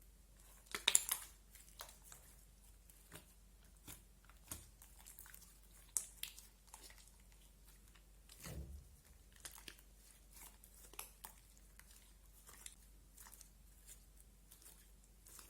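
Slime being pressed and stretched by hand, giving irregular small crackling pops and sticky clicks, with the loudest burst of crackles about a second in.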